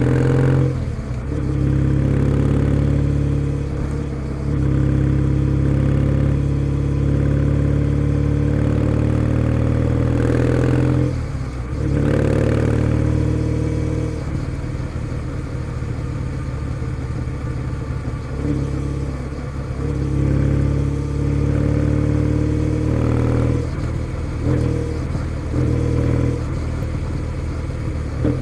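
Kawasaki W650 parallel-twin engine running through a POSH W1 aftermarket full exhaust while riding, pulling through the gears with brief dips in the exhaust note at the shifts, about a second in, near four seconds and again near twelve seconds. Over the second half it runs softer and less even, as on a lighter throttle.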